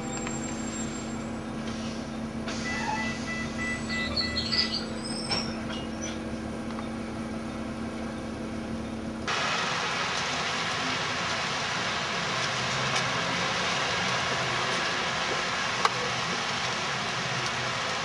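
A steady low hum with a few short chirping calls, like birds, about three to five seconds in. After a cut about nine seconds in, louder, steady city traffic noise takes over.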